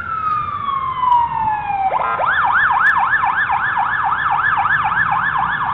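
Emergency-vehicle siren sound effect. It gives one falling wail for about two seconds, then switches to a fast yelp of about four rising-and-falling sweeps a second.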